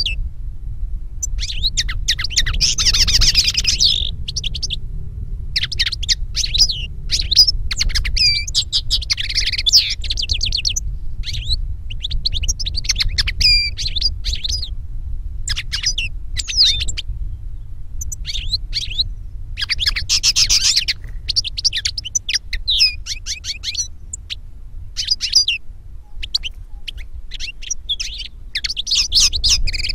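European goldfinch and common linnet song: rapid, twittering, tinkling phrases of a second or two, broken by short pauses, over a steady low hum.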